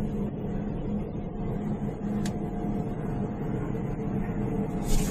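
Steady machinery hum of a running desiccant dehumidifier unit's motors and fans, with a low held tone, a short click about two seconds in and a brief hiss near the end.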